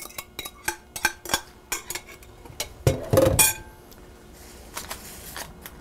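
Metal spoon knocking and scraping against a glass mixing bowl to get out the last of a walnut filling: sharp clinks with a short glassy ring, about three a second. About three seconds in comes one louder clunk, then soft rubbing as hands spread the nut filling over phyllo dough.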